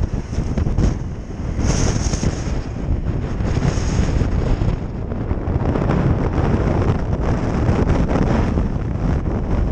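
Wind buffeting a helmet-mounted camera's microphone while riding a trail motorcycle, with the bike's engine running under the rush of air.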